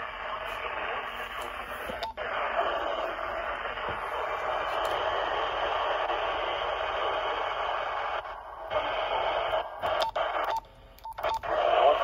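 Radio static hissing from a Motorola two-way radio's speaker, cutting out briefly a few times near the end.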